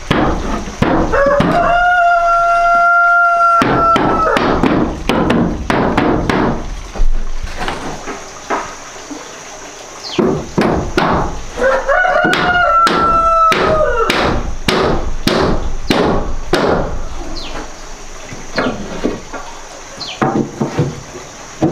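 Hammer blows nailing wooden boards, in quick irregular runs of strikes. A rooster crows twice, a long held crow of about three seconds each, one near the start and one about halfway through.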